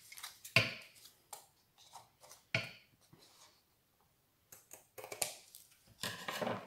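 Scissors snipping through lace and paper at the edge of a handmade card, a few sharp snips in the first seconds. Near the end, the paper card rustles as it is handled over the cutting mat.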